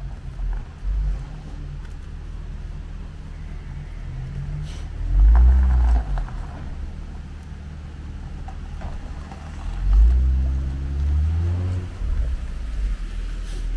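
Cars driving past on a narrow road, their engines loudest about five seconds in and again about ten seconds in, over a steady low rumble.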